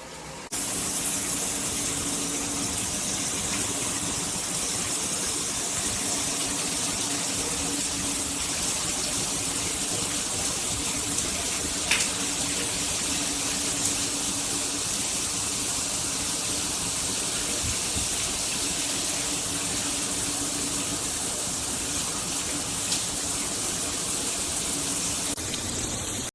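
Water spraying steadily from a shower head, an even rushing hiss that starts abruptly about half a second in and stops just before the end.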